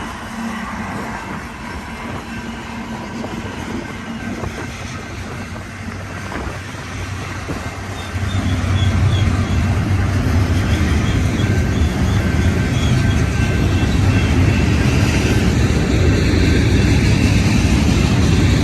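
Union Pacific diesel freight locomotives approaching with their train, a low engine rumble that grows much louder about eight seconds in.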